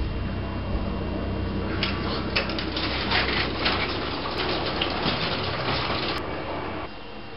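Exterior roller shutter being hauled up by its strap, its slats rattling and clattering in quick uneven clicks for about four seconds and ending in a sharp click. A steady low hum runs underneath and drops away shortly before the end.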